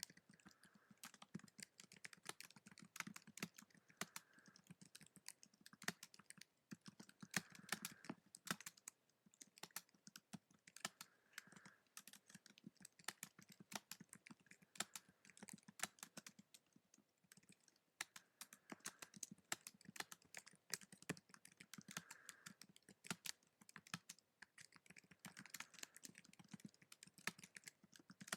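Quiet typing on a keyboard: quick, irregular key clicks, with short pauses about six and seventeen seconds in.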